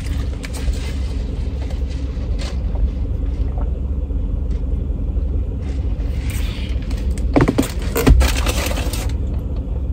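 Idling car engine heard from inside the cabin as a steady low rumble, with a few short clicks and scrapes about seven to eight seconds in.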